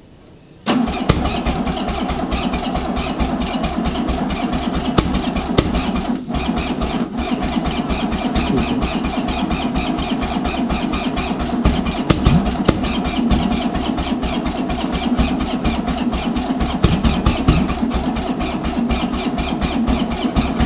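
Starter motor cranking a newly rebuilt classic Mini engine, which turns over steadily without firing. It kicks in suddenly about a second in. The cranking is slow, which is put down to the engine being new and tight.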